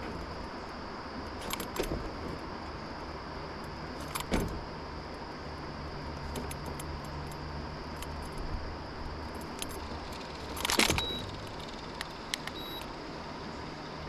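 Metal hook and clip of a digital hanging fish scale jangling and clinking as the smallmouth bass hanging from it shakes, in a few short bursts, the loudest late on, over a steady rushing background noise.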